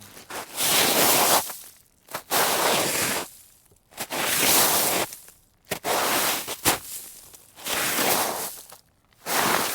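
Shoes sliding and skidding across snow: a series of about six gritty scraping slides, each lasting about a second, with short pauses between them.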